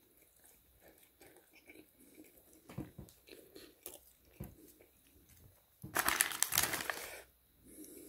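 Close-up chewing and crunching of fried chicken, with small clicks of the mouth. About six seconds in, the paper wrapper rustles loudly for about a second as a piece of chicken is picked up.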